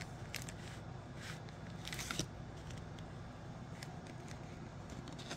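Baseball trading cards being handled and flipped, card stock sliding against card stock in a few short, soft scratchy rustles and clicks, the loudest about two seconds in, over a steady low hum.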